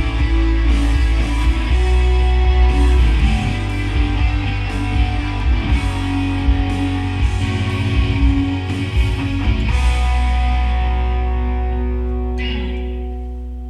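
Rock music with electric guitar and a heavy low end, ending on a held chord that rings out and slowly fades.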